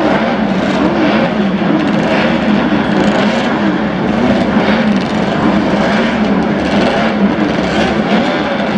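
Engines of vintage racing motorcycles, built before 1972, running on a circuit, their pitch rising and falling again and again as they rev and pass.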